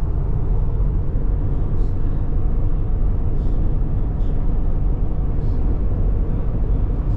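Steady low rumble of road and engine noise from a car driving along at speed, with a few faint brief ticks.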